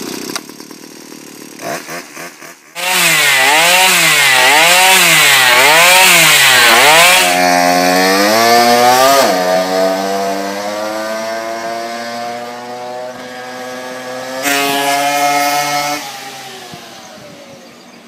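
49cc two-stroke engine of an Evo Powerboard with a handmade exhaust pipe. It runs quietly at first, comes in loud about three seconds in, and is revved up and down about four times. It then holds a steadier note, picks up briefly near the end and dies away.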